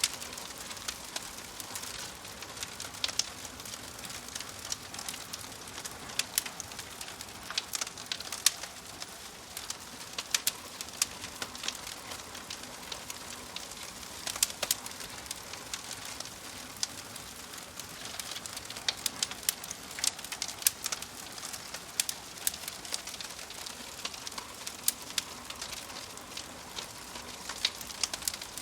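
Wood fire burning in a fireplace, crackling with irregular sharp pops and snaps over a steady hiss.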